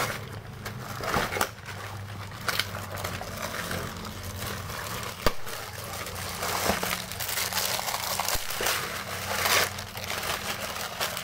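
Plastic bags and food packets crinkling and rustling as they are handled close to the microphone, with a sharp click about five seconds in.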